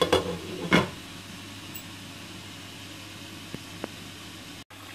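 Glass pot lid set onto a metal cooking pot, clattering twice against the rim within the first second as the simmering curry is covered to steam. A steady low hum and hiss follows.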